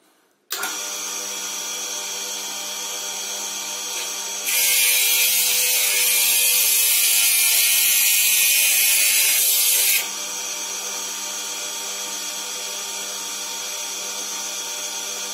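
Motor of a wet lapidary wheel running steadily from about half a second in. From about four and a half seconds to ten seconds a piece of chrysoprase is pressed against the spinning wheel, adding a loud hissing grind, and then the machine runs on alone.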